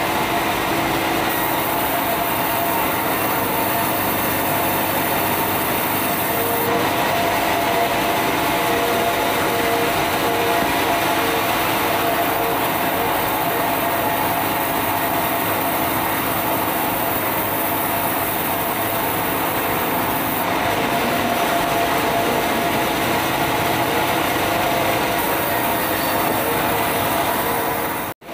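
Sawmill band saw running steadily as it rips red meranti timber into boards, with a high blade hiss that comes and goes as the wood passes through the cut. The sound cuts out for an instant near the end.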